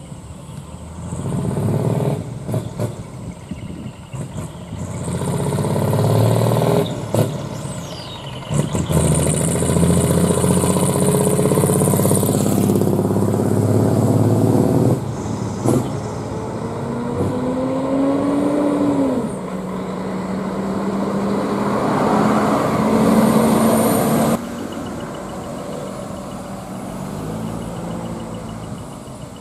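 Diesel engines of decorated trucks fitted with split exhaust manifolds (mani-wari), running loud and revving as the trucks drive off one after another. There are bursts of air hiss typical of air brakes in the first half and a rising rev about two-thirds in, and the sound drops suddenly about three-quarters in.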